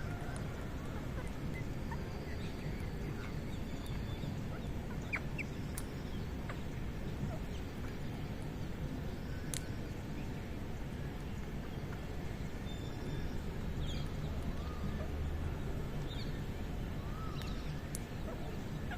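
Scattered short bird chirps and calls over a steady low background rumble, with a few sharp clicks; the chirps come more often near the end.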